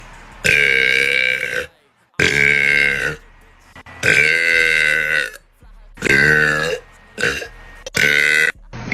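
Loud belching: six burps in a row, each about a second long except a short fifth one, with gaps between them.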